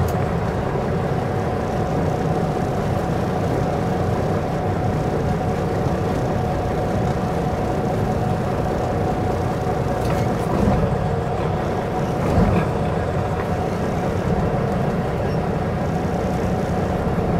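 Semi truck's diesel engine and road noise heard from inside the cab, a steady drone at low speed with a faint steady whine above it.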